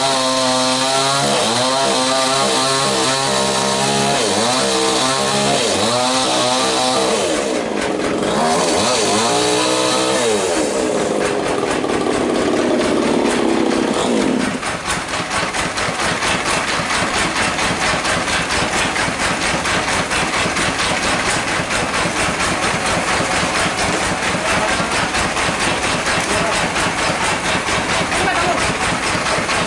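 Chainsaw cutting into a mahogany log, its engine pitch rising and falling under load. About halfway through the cutting stops and an engine carries on running steadily at idle.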